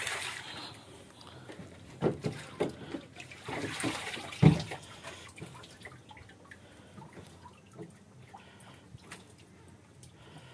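Water splashing as live grouper are handled in and out of the water, with several knocks about two seconds in and a heavier thump about four and a half seconds in; after that only faint drips and ticks.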